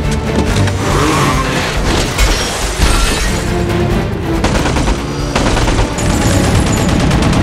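Action-film soundtrack: tense score music mixed with rapid bursts of automatic gunfire, booms and vehicle noise.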